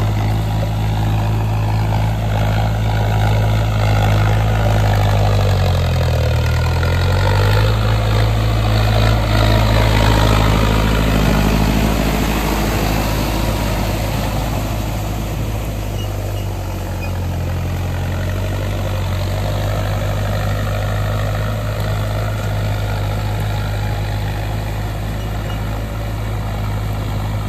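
Mahindra tractor's diesel engine running steadily under load as it pulls a rotavator through a flooded paddy field. It grows louder as the tractor passes close about halfway through, then eases off as it moves away.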